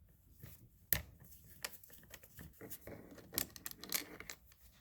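Screwdriver working a Phillips head screw out of the plastic inside door handle housing: a faint scraping rasp with scattered light clicks, the sharpest about a second in.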